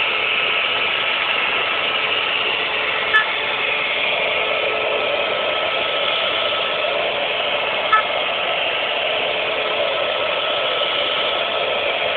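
CNC machine running steadily while machining a sphere, a continuous even rushing noise with two short clicks about 3 and 8 seconds in.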